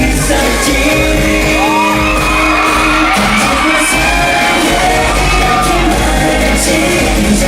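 Loud K-pop song with sung vocals, with shouts and whoops from an audience over it.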